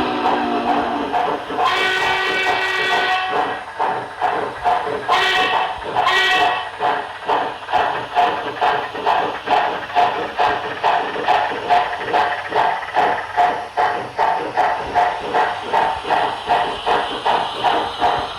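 HO scale model steam locomotive's LokSound 5 sound decoder playing a steam whistle: one long blast about two seconds in, then two short toots, over an even exhaust chuff of about two to three beats a second.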